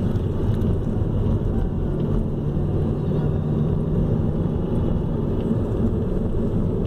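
Steady low rumble of a car driving at road speed, heard from inside the cabin: engine and tyre noise with a faint low hum.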